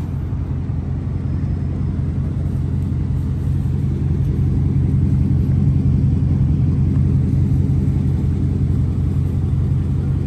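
Dodge Charger Scat Pack's 392 HEMI V8 idling steadily through an exhaust fitted with Dynomax Bullet resonators, sounding smooth and deep. It grows a little louder about four seconds in.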